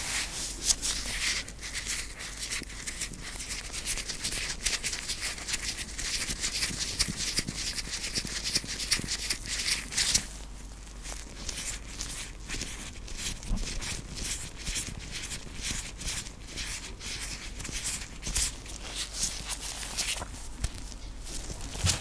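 White rubber gloves rubbed together and moved close to the microphone: crackling rubber friction, packed tight for about the first ten seconds, then broken into separate rustles and ticks.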